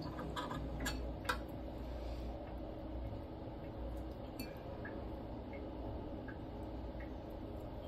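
A few light clicks and knocks in the first second or so as a kitchen knife and a metal roasting pan are handled while a raw turkey is being pierced, then only faint ticks over a steady low hum.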